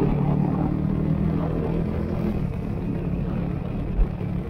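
Motorcycle engine running steadily at cruising speed under wind and road noise, a low even hum that eases a little about halfway through, with one brief low bump near the end.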